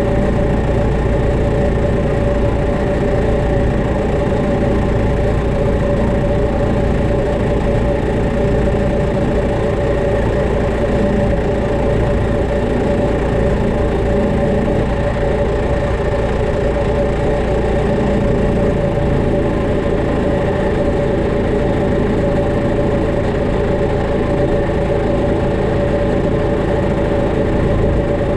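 Farm tractor's engine idling steadily, with a strong constant hum, while it holds a round hay bale up on its front loader.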